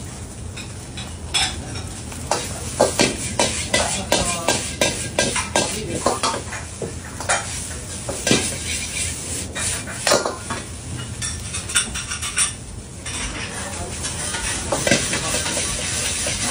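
A metal ladle scraping and knocking against a wok as egg fried rice is stir-fried, with the rice sizzling. The quick clatter is dense for most of the stretch; about 13 seconds in it eases off and a steadier sizzle takes over.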